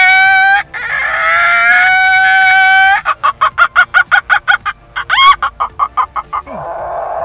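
A man imitating a chicken with his voice: a long held rooster crow, then a quick run of hen-like clucks, about five a second, broken by a short rising squawk.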